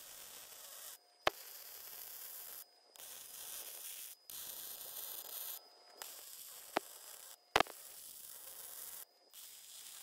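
Wire-feed MIG welding arc from a Titanium welder laying short stitch welds on steel: a steady hissing crackle in about seven runs of a second or so each, with brief pauses between them. Three sharp pops stand out, about a second in, and twice more between six and a half and seven and a half seconds in; the last is the loudest sound.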